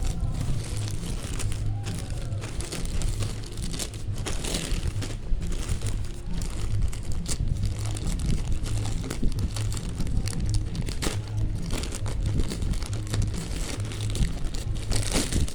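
Plastic packaging of a tempered-glass screen protector crinkling and crackling in irregular handling noises as it is unwrapped by hand.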